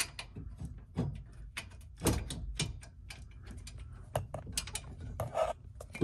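Hand ratchet clicking in quick, uneven runs as the steering column's mounting bolts are run in, with a few louder knocks of the tool and metal.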